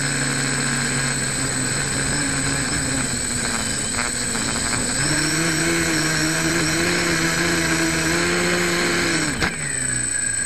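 Home-built quadcopter's electric motors and propellers humming, heard from the camera on its own frame, the pitch shifting up and down with throttle. About nine seconds in there is a thump as it comes down in the grass, the motors wind down, and a high steady whine is left.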